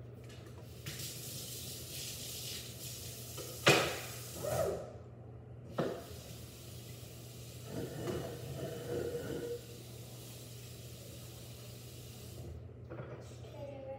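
Kitchen faucet running into the sink with a steady hiss, broken by a sharp knock about four seconds in, a few lighter knocks, and a spell of clattering around eight to nine seconds in.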